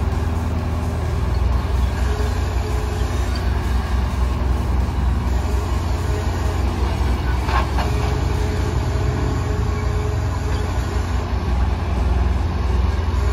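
Grapple loader truck's engine running steadily while its knuckle-boom grapple loads tree debris, with a brief clatter about halfway through.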